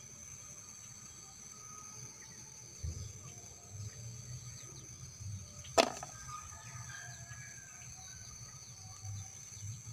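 Steady high-pitched insect drone over soft handling noise as a hand picks white bird's eye chilies from the bush, with one sharp snap about six seconds in.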